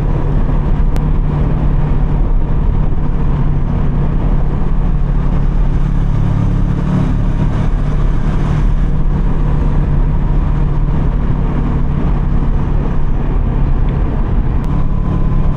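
Kawasaki Versys 650's parallel-twin engine running at a steady cruise while riding, a constant low drone mixed with rushing road noise.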